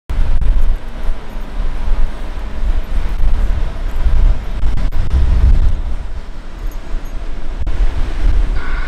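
Volvo L180H wheel loader working a sugar beet pile, its diesel engine a low rumble under heavy wind buffeting on the microphone. A repeating beep begins near the end.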